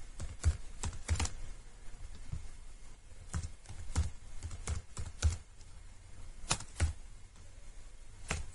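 Computer keyboard typing: scattered, unhurried keystrokes at an uneven pace, sometimes two or three close together and then a short pause.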